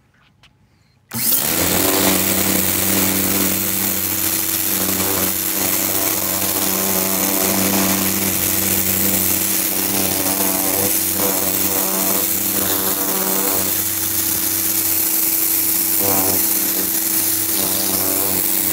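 Small 1700 PSI electric pressure washer switching on about a second in, then running steadily: a motor-and-pump hum under the hiss of the water jet spraying onto composite deck boards.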